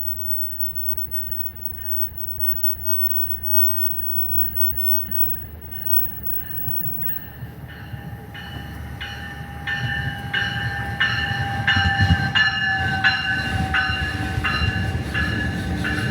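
Passenger train approaching, its rumble building over the last several seconds, while a bell rings about twice a second and grows steadily louder as the train draws near.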